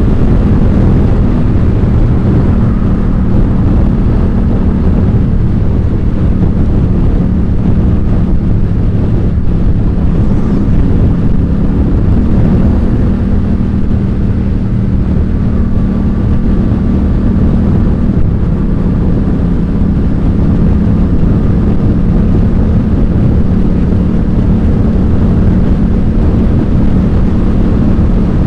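Yamaha FZ-07's 689 cc parallel-twin engine running through an Ixil L3XB aftermarket exhaust while riding along at a steady throttle, its note shifting slightly a few times.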